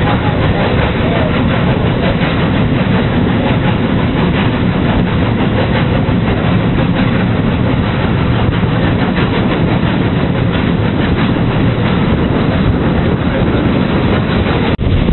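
Steam-hauled train under way, heard from on board just behind the locomotive: a steady, loud rumble and rattle of the running engine and wheels on the rails.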